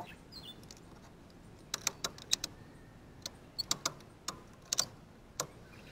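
Ratchet strap being tightened by hand, its ratchet clicking in short irregular runs of sharp clicks starting about two seconds in.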